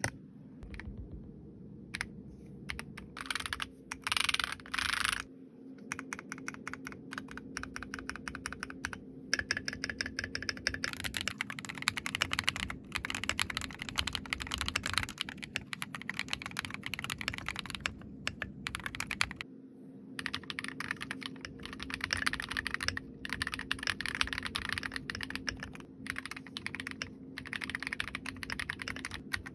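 Kiiboom Phantom 81 V2 transparent mechanical keyboard being typed on: a few separate key presses at first, then fast, continuous typing with a short pause about two-thirds of the way through.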